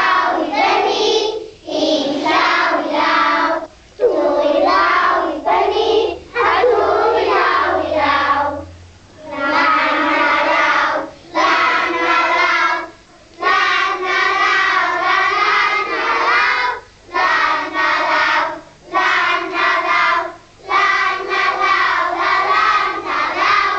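A group of young children singing a Welsh action song together, in short phrases with brief breaks between them.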